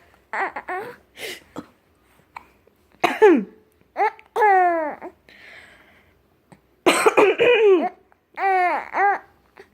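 A woman coughing in short bursts, several times, and a three-month-old baby answering with high-pitched squealing laughs whose pitch slides downward.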